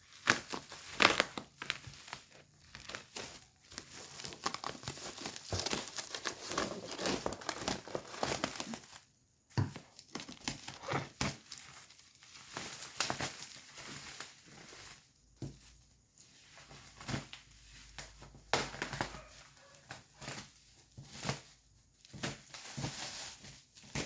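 Packaging being unwrapped: wrapping crinkling and tearing in irregular rustles, with short pauses, as a boxed appliance is opened.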